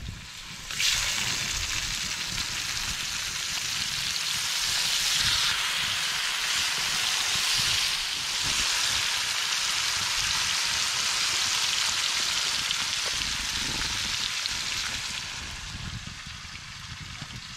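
Meat and vegetable hash sizzling in a metal pan over a wood fire: a steady frying hiss that starts suddenly about a second in and eases off near the end.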